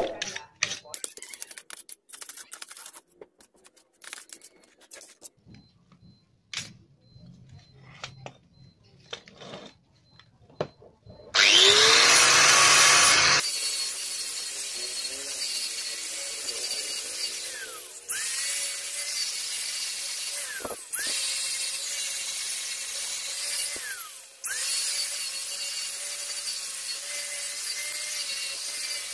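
A hand wire brush scrubs rust off a steel jack in short, scratchy strokes. About eleven seconds in, an angle grinder spins up loudly and then runs steadily on the rusty metal. Its pitch drops away and recovers three times as it is eased off and back on.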